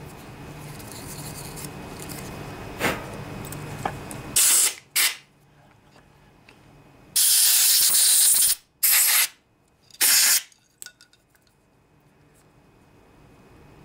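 Five short, loud blasts of spray hissing on the cleaned carburetor parts, the third held for over a second. A faint steady low hum and a couple of clicks come before them.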